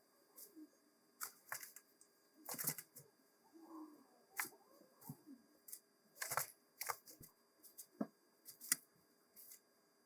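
Quiet, irregular light clicks and taps from handling the metal parts of a restored bench vise, about a dozen spread unevenly with short pauses, plus a soft rustle in the middle.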